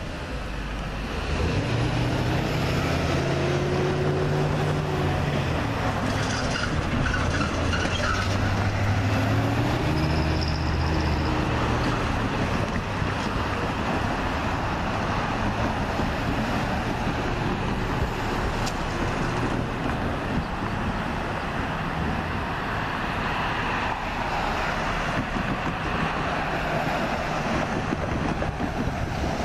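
Road traffic: motor vehicles driving past on the street, their engines rising and falling in pitch twice in the first dozen seconds, over a steady traffic noise.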